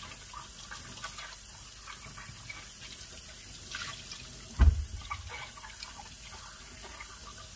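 Kitchen tap running into a stainless steel sink as halved bell peppers are rinsed under the stream, the water splashing off them. A single low thump a little past halfway stands out as the loudest sound.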